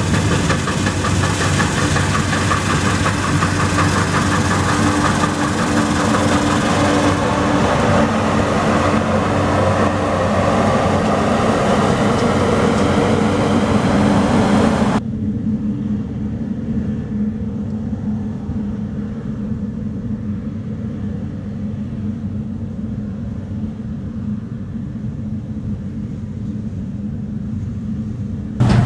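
Combine harvesters at work in a grain field: a steady, loud engine drone with the noise of the threshing machinery. About halfway through the sound changes abruptly to a duller, lower drone with the high hiss gone.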